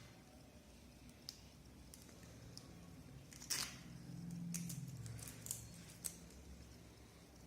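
Faint clicks and scrapes from handling the parts of an opened-up smartphone, with the loudest scrape about three and a half seconds in.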